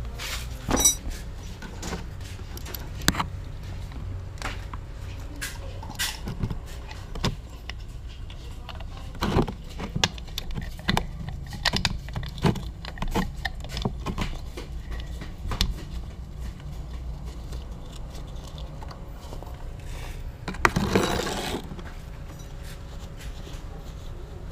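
Scattered metallic clicks and clinks from hand tools and a motorcycle engine oil drain bolt being handled, over a steady low hum. There is a brief rubbing noise about 21 seconds in.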